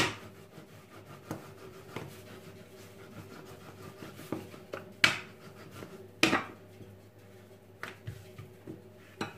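A plastic rolling pin rolling out dough on a countertop, with a low rubbing sound and several sharp knocks of the pin on the counter: one at the very start, two about halfway through, and one near the end.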